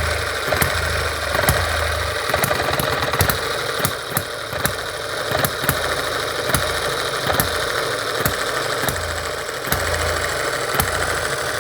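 M91 Microcosm model hit-and-miss gas engine running on lighter fuel. Sharp clicks come about once or twice a second as it cycles, and short spells of low chugging come and go between them.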